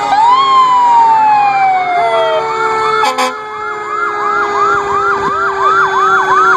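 Several fire truck sirens sounding at once as the apparatus passes: one tone falls slowly in the first two seconds while another cycles in a fast rising yelp, two or three sweeps a second, over steady held tones. A sharp click about three seconds in.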